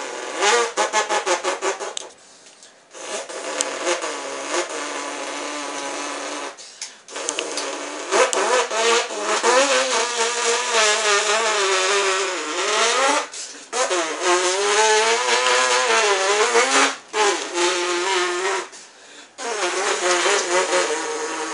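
A person imitating a stock car engine with their mouth: a buzzing engine note that glides up and down like revving and gear changes. It pulses rapidly in the first couple of seconds and breaks off briefly several times.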